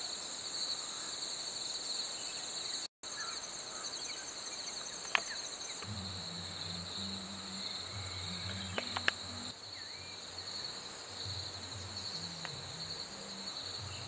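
Steady, high-pitched chorus of insects in two continuous trilling bands. A low drone joins about six seconds in, and there are a few faint clicks.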